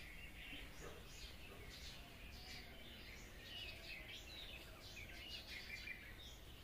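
Faint chorus of small birds chirping, many short overlapping calls, over a low steady background hiss.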